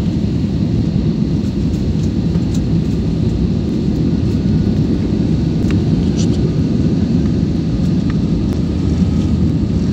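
Steady low rumble of engine and airflow noise inside a jet airliner's cabin in the last seconds of the landing approach, low over the runway before touchdown.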